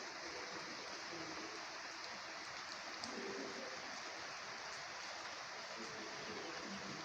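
Light rain shower falling: a steady hiss with a few faint, sharp drop ticks.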